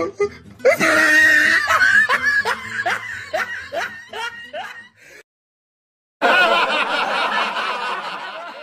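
Laughter: a run of short ha-ha bursts, about three a second, for several seconds. It breaks off for about a second of silence, then a noisier, hissier stretch of sound follows.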